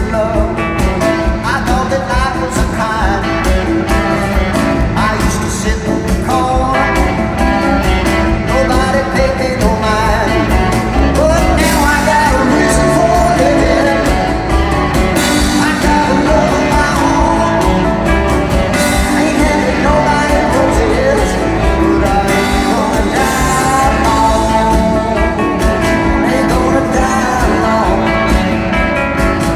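Live rock band playing with electric guitars and drums, heard from the audience.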